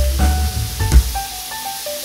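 Background music with a melody of stepping notes over a bass beat, above light sizzling of food frying in a wok; a sharp knock about halfway through.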